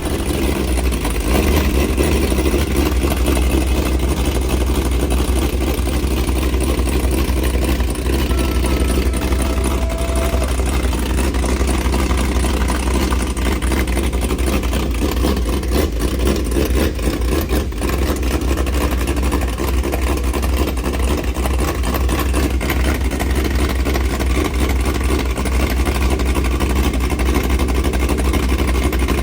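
Car engine running steadily, a deep even rumble with no revving.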